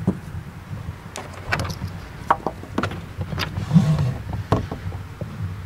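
Scattered clicks and knocks of a hand handling a car's rubber weatherstrip and interior trim, over a low steady rumble.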